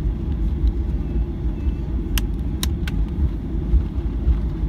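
Steady low rumble inside the cabin of a Boeing 737-800 on the ground before takeoff, with three sharp clicks about halfway through.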